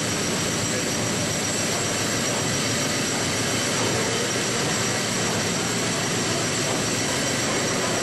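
A Liberty ship's triple-expansion reciprocating steam engine running under way, heard in the engine room as a loud, steady machinery din with thin, steady high tones above it.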